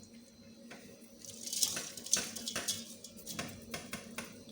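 Seasoning being added to a pot of meat on the stove: a rushing hiss starts about a second in and lasts about a second and a half, with scattered light clicks and knocks that stop shortly before the end.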